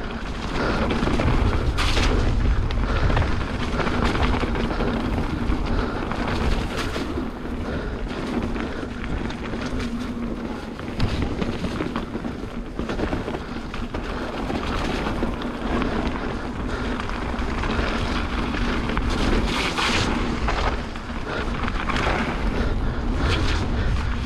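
Wind buffeting the microphone of a camera on a mountain bike riding down a trail, with the continuous rumble and rattle of the bike over rough ground and frequent small knocks.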